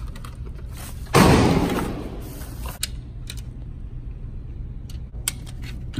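A single loud bang about a second in, its echo dying away over about a second: a gunshot ringing through an indoor shooting range. After it come a few faint clicks of 9mm cartridges being handled on the bench, over a steady low hum.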